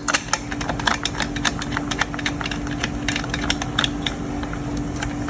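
Irregular small clicks and rattles of the chainsaw's plastic side cover and bar nuts being handled and threaded on finger tight, over a steady low hum.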